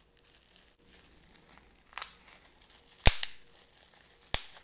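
Bubble wrap crinkling in the fingers, with a faint pop about two seconds in and then two loud, sharp pops about a second apart as bubbles burst.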